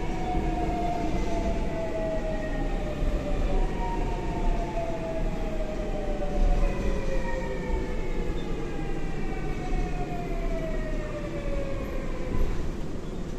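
Alstom GTO-thyristor VVVF inverter of a Seoul Line 4 4000-series electric train whining as the train brakes into a station: several tones fall slowly in pitch together over a steady running rumble, then die away near the end as the train comes to a stop.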